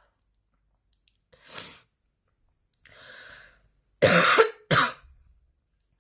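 A woman coughing: one cough about a second and a half in, a softer drawn-out sound, then two hard coughs back to back near the end, the loudest part of the fit.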